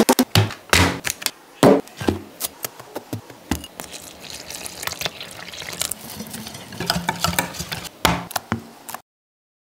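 Food being mixed by hand in a bowl: stirring a wet batter, with a quick run of clicks at the start and scattered sharp knocks against the bowl. The sound cuts off abruptly near the end.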